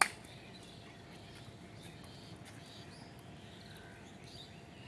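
A single sharp hand clap right at the start, the signal to change to the next exercise. After it, birds chirp in the background.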